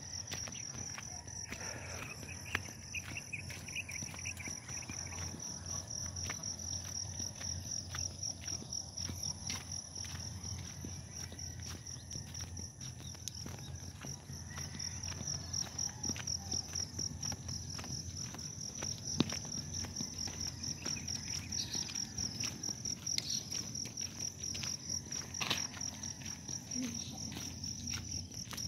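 An insect chorus chirping steadily in a high, rapidly pulsing trill, over a low rumble with the scattered scuffs of footsteps.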